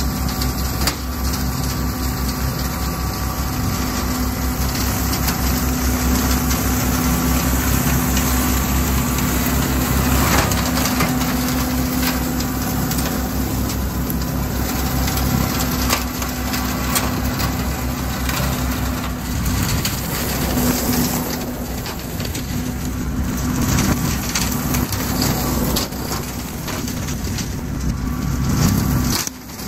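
Kubota L3901 tractor's three-cylinder diesel engine running steadily under load while its rear Land Pride brush hog (rotary cutter) spins, mulching leaf litter, briars and small brush. A few sharp knocks are heard as debris hits the cutter.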